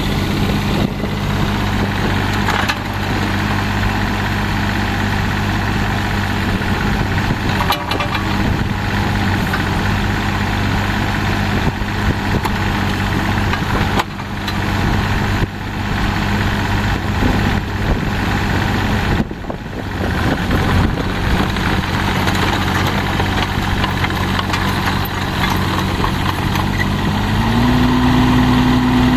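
Diesel engine of a 2002 Schaeff HR12 mini excavator running steadily at idle, with a few knocks along the way. Near the end its speed steps up to a higher, steady pitch.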